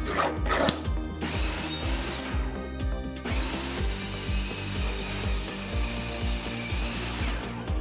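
Table saw cutting through a stack of wooden shelf boards, with a short cut about a second in and a longer one from about three seconds in until near the end, over background music with a steady beat.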